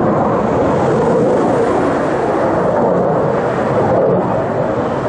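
Loud, steady jet noise from a Canadian CF-18 Hornet's twin turbofan engines as the fighter flies by overhead, fading slightly near the end.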